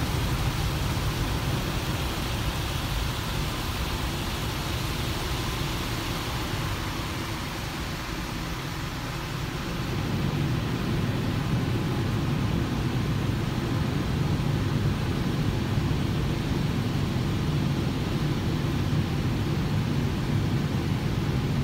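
Automatic car wash heard from inside the car: a steady rushing noise of the wash's spray and machinery, which turns deeper and louder about ten seconds in.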